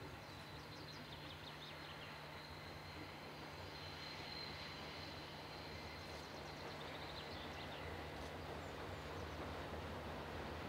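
Faint, steady low drone of an ALCO DL 537 diesel locomotive engine running at a distance, growing slightly louder, over outdoor background noise.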